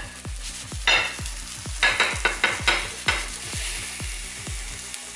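A spatula scrapes a zucchini frittata loose in a frying pan as it is slid out onto a plate: a run of short scrapes in the middle, over a faint sizzle.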